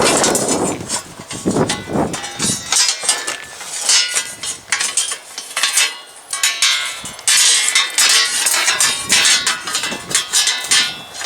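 Hand tools and small metal parts clinking and tapping in quick, irregular clicks as mower shifter parts are refitted, with some duller handling noise in the first couple of seconds.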